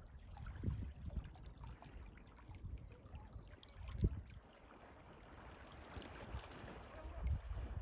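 Seawater sloshing and splashing at the shoreline, with wind buffeting the microphone in low rumbling gusts and one sharper thump about four seconds in.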